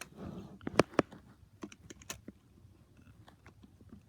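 Irregular light clicks and taps of small plastic toy train parts being handled and pried apart, a few sharp ones about a second in, then sparser and fainter.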